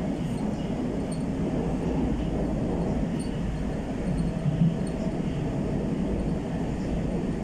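Moscow Metro 81-765/766/767 'Moskva' train running between stations in a tunnel, heard inside the car: a steady rumble of wheels on rails and running gear.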